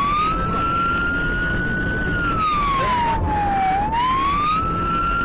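Siren wailing, its pitch slowly rising and falling about once every four seconds, over steady low road noise.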